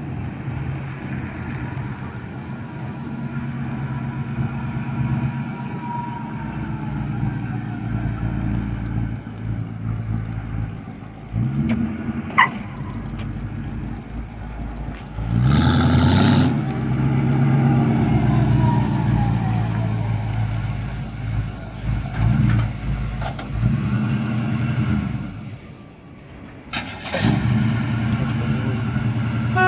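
1971 GMC pickup's engine and exhaust as the truck drives past and around, running steadily with several revs; the loudest rev comes about halfway through.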